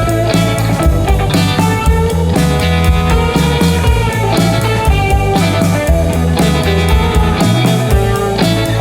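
Background rock music with guitar, bass and drums.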